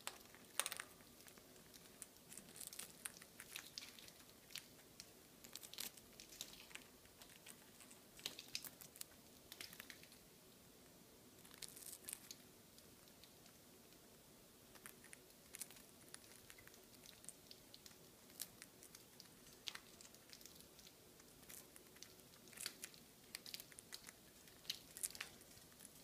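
Green-cheeked conures crunching and picking at dry food with their beaks: faint, irregular small crackles and clicks, a few at a time, with the sharpest about a second in.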